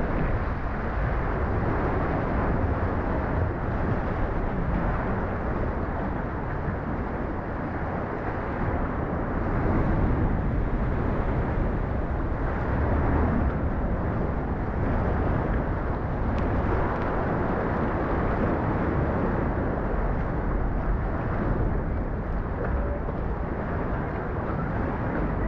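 Steady rushing noise of sea water and wind, swelling slightly now and then.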